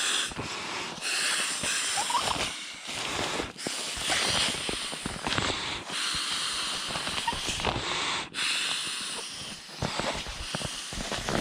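A person blowing a series of breaths into the valve of a small inflatable camping pillow. Each breath is a rush of air lasting a second or two, with short pauses between, over light rustling and handling of the pillow fabric.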